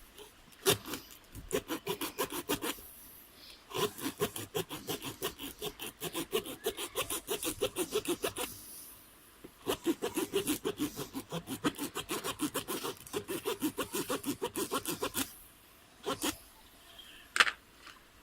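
Tyre plug kit's spiral rasp tool being worked rapidly in and out of a puncture in a tubeless tyre, reaming the hole out so the plug will go in. The rasping strokes come at about five a second in three long runs, with two single sharp clicks near the end.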